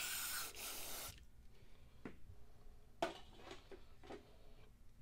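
A one-second hiss of aerosol spray onto the milling vise, followed by a few light clicks and scrapes as a bristle brush sweeps metal chips across the mill table.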